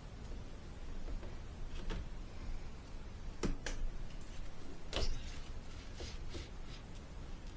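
A few sharp, light clicks and taps of plastic as the diffuser plate and optical sheets of an LCD TV backlight are handled and laid into the frame, the loudest about three and a half and five seconds in.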